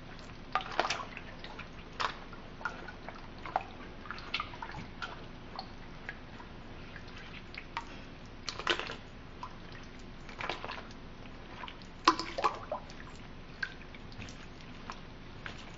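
Water dripping and splashing into a glass bowl of soaking acacia flowers: scattered single drops at uneven intervals, with a few larger splashes about 9 and 12 seconds in.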